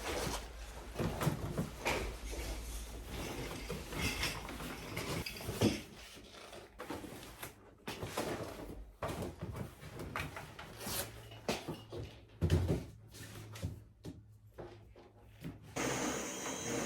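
Small household handling sounds: scattered knocks, taps and rubbing, as of wooden drawers or cupboards and objects being moved. Near the end a steady rushing noise starts and keeps going.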